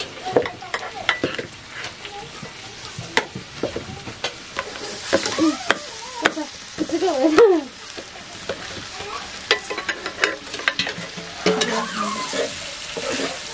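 Metal spoon stirring a thick mash in an aluminium pot, with many sharp clinks and knocks against the pot and some drawn-out scrapes around the middle. A steady sizzle of frying runs underneath.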